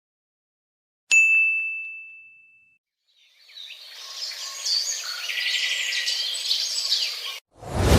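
A single bright ding, a bell-like chime that rings and fades over about a second and a half. Then, after a pause, birds chirping busily for about four seconds, cut off abruptly. Just before the end a sudden loud sound begins.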